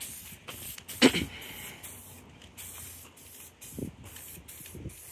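Aerosol spray-paint can hissing, the spray stream broken by frequent short gaps. A brief loud thump about a second in, with a couple of softer low bumps near the end.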